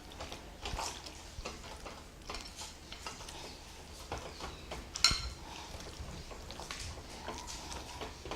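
Hands kneading chicken pieces in a wet spice-and-oil paste in a bowl: soft irregular squelches and small knocks, with one sharp clink against the bowl about five seconds in.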